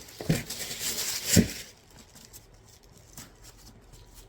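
Rustling of packaging with two sharp knocks about a second apart, the second the louder, as a pair of boots is handled; the rustling stops soon after the second knock.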